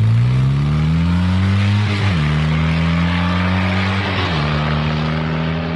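Car engine accelerating through the gears: the revs climb, then drop sharply at two upshifts, about two seconds in and again just after four seconds, before running on steadily.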